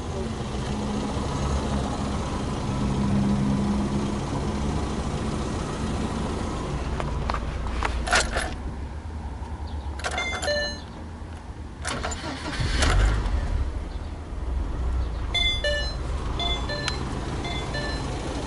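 A car engine running steadily, with a louder low surge about two-thirds of the way through. A few clicks and short high chirps come near the middle and later.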